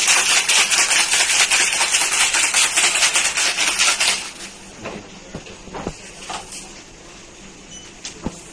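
Ice rattling rapidly in a handheld drink shaker being shaken hard, which stops abruptly about four seconds in. After that there are only a few light knocks and clicks as the shaker is handled on the counter and the drink is poured.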